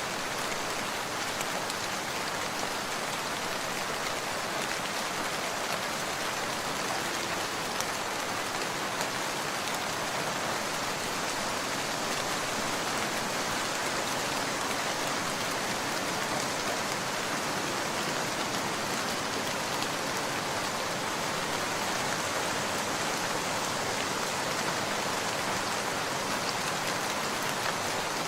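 Steady rain falling, an even hiss of many drops without letting up.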